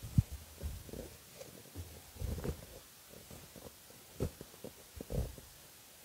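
Muffled low thuds of footsteps and body movement close to the microphone, coming irregularly, the loudest about a quarter second in, over a quiet room.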